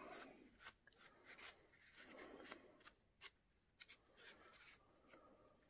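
Faint rubbing of a paper tissue over an oil-painted miniature horse, wiping the wet paint off its surface, with a few light ticks from handling the figure.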